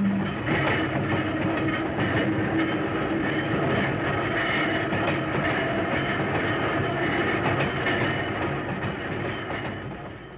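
Pacific Electric electric interurban railcar running along the track, its wheels clicking over rail joints above a steady rumble. A low hum runs through the first few seconds, and the sound fades near the end.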